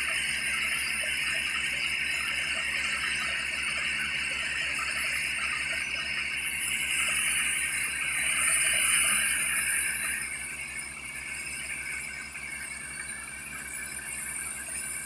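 Water and air gushing and splashing out of a borewell casing as it is flushed with compressed air, a steady hissing spray, with a low machine hum beneath.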